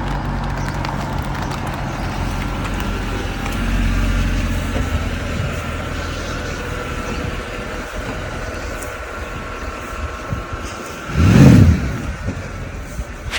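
Mercedes ML 63 AMG's naturally aspirated 6.2-litre V8 idling with a lumpy, rhythmic burble, swelling slightly about four seconds in. About eleven seconds in it is blipped once, a short sharp rev that rises and falls back to idle.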